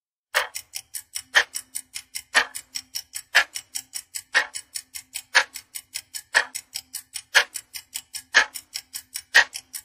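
Countdown-timer ticking: a clock tick-tock about four times a second, with a louder tick on every second.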